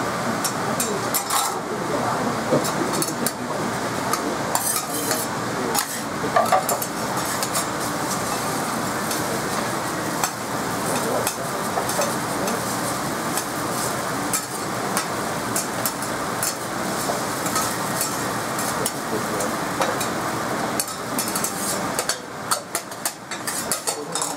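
Food sizzling on a hot steel teppan griddle while metal spatulas scrape, tap and clink against the plate as okonomiyaki and noodles are turned and lifted. The clinks come sharper and more spaced near the end.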